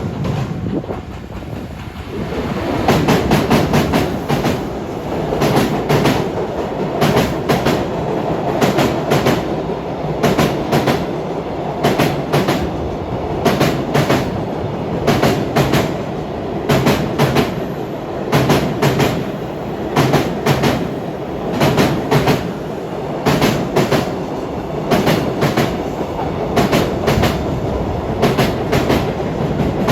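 Long freight train passing, its wheels clicking over rail joints in a steady repeating clickety-clack under a continuous rumble. The sound gets louder about two seconds in.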